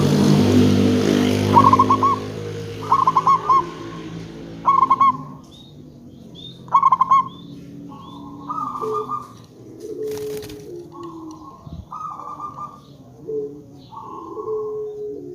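Zebra dove (perkutut) cooing: four bursts of rapid trilled notes, then softer, longer coos, with lower gliding notes joining in the second half. A low drone fades out in the first second or so.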